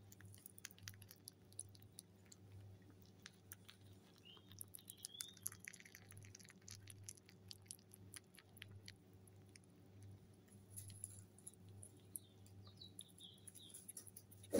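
Mini lop rabbits chewing banana from a hand: faint, quick clicking of their teeth. A bird chirps briefly twice in the background, and there is a single thump right at the end.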